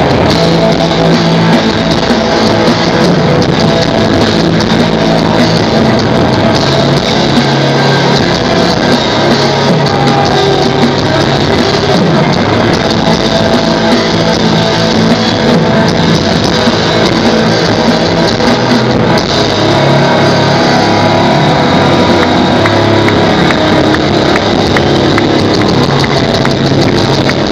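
Rock band playing live and loud, electric guitar over drums and bass.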